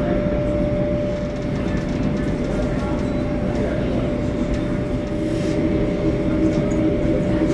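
Cabin noise inside a Boeing 737-800: a steady low rumble with a constant mid-pitched hum.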